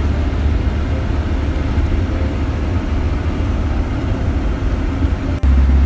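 A car driving up a mountain road: a steady low rumble of engine and road noise. A click and a short dip come about five seconds in, after which the rumble is steadier and a little louder.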